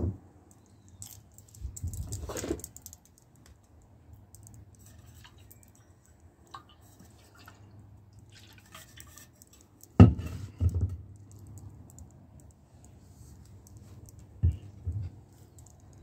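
Camping gear being handled and set down on a wooden floor: a knock at the start, a stretch of rubbing and scraping, a loud thud about ten seconds in with a couple of smaller knocks after it, and another knock a few seconds later. The loud thud fits a stainless steel insulated bottle being put down.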